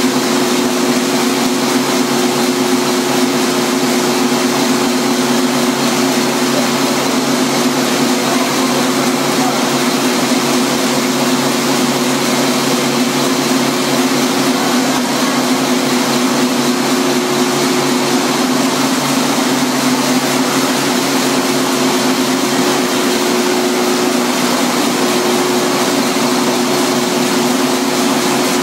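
Large stationary gas engine of a biomass gasification power plant running steadily at constant speed and driving its generator, with an even, unchanging hum and a wide mechanical clatter.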